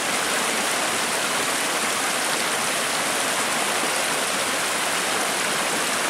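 A small woodland brook tumbling over rocks and a little cascade close by: a steady, even rush of water.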